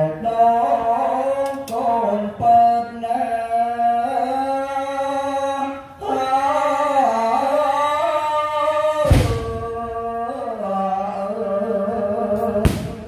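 A slow sung melody with long held, wavering notes, cut through twice by loud sharp firework bangs, about nine seconds in and again near the end.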